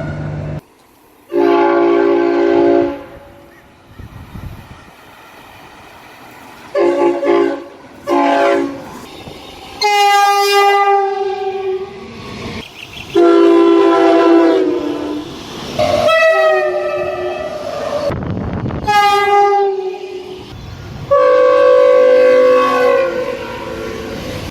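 Train horns sounding a run of blasts, each a chord of several notes: some short toots, some held for about two seconds, about eight in all. Between the blasts a train rumbles quietly.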